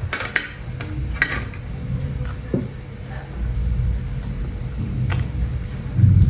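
Eating sounds from chewing steamed momos: a few short clicks and smacks, most of them in the first second and a half and one more about five seconds in, over a steady low rumble.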